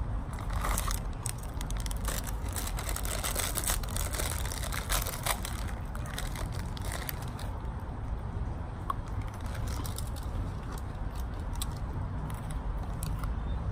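Plastic snack packet of Pepero biscuit sticks crinkling as it is handled and opened: a dense run of crackles in the first half, then scattered ones, over a low steady rumble.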